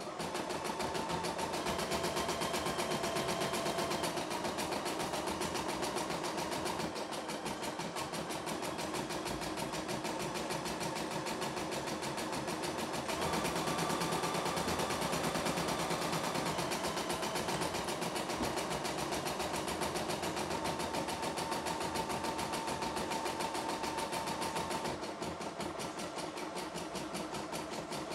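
CNY E960 computerized embroidery machine stitching lettering: a rapid, even needle stroke with its motor running, the hoop carriage shifting the fabric under the needle. It gets a little louder about halfway through and eases slightly near the end.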